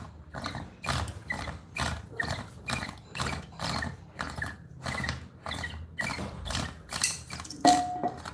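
Bamboo water pipe (điếu cày) bubbling in a long draw: quick, even gurgles, about three a second, with a short higher tone near the end.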